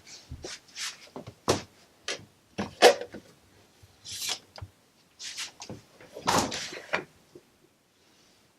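Irregular knocks, clatters and rustles of things being handled in a kitchen, such as doors, containers and utensils. They stop about a second before the end.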